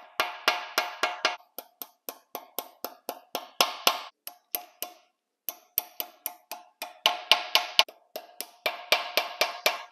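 Small hammer tapping steel dowel pins home into the deck of a 5.3 LS V8 block: a quick run of light metallic taps, about four or five a second, each with a short ring, with a brief pause about halfway through. The taps seat the pins fully for the cylinder heads.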